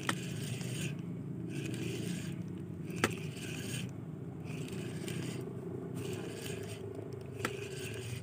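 Spinning fishing reel being cranked to retrieve a lure: a rhythmic scraping that swells and fades about every second and a half, with three sharp clicks, the loudest a few seconds in.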